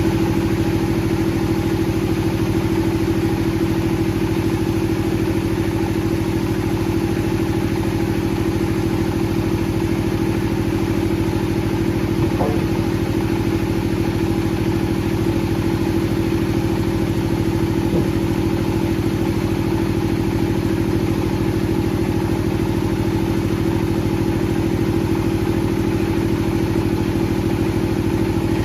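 Wood-processing machinery running steadily: a constant, engine-like hum with a strong steady tone that neither rises nor falls.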